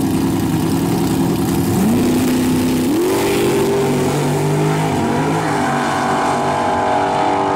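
Race car engines at the drag strip start line, then launching at full throttle. The engine note rises sharply about two seconds in and again about a second later as the cars pull away, then settles into a steadier, more distant drone.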